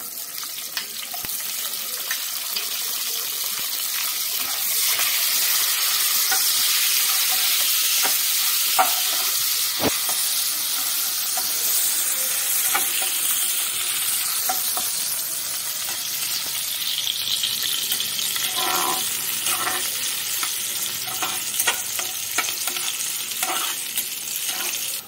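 Sliced onions sizzling as they fry in hot oil in a kadai; the sizzle starts suddenly as they go in. A flat metal spatula stirs them, with frequent light scrapes and taps against the pan.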